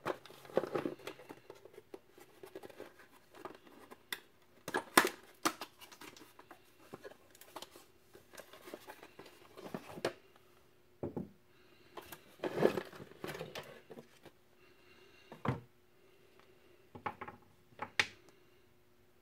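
A cardboard box being handled and emptied, with rustling and irregular knocks and clinks as metal and plastic pipe clamp parts are tipped out and set down on a wooden workbench.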